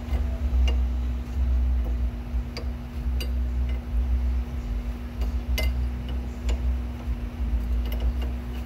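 Light metallic clinks and ticks at irregular intervals as steel wrenches knock against a car's tie rod and each other: an adjustable wrench holds the inner tie rod while a spanner works the tie rod end's nut loose. A steady low hum runs underneath.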